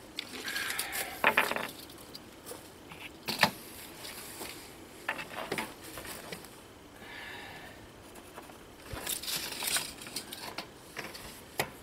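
Hand tools handled and worked on a sheet of OSB: scattered clicks and knocks, a sharp knock about three and a half seconds in, and short scratchy scraping bursts against the wood.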